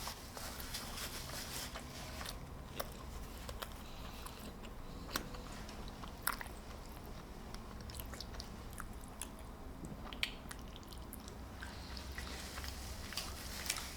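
A person chewing and biting fast food close to the microphone, with scattered small mouth clicks and smacks.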